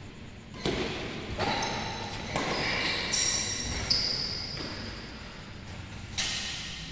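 Badminton play echoing in a large sports hall: several sharp racket strikes on the shuttlecock, a second or more apart, with high-pitched shoe squeaks on the court floor in the middle.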